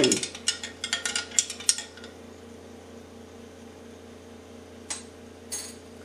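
A metal spoon stirs coffee in a Grosche stovetop espresso pot (moka pot), clinking quickly against the pot's sides for about two seconds. Then only a faint steady hum is left, with two soft clicks near the end.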